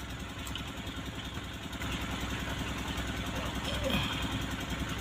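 Mahindra Scorpio's diesel engine idling steadily while the emissions system is put through scan-tool tests. There is a sharp click right at the start.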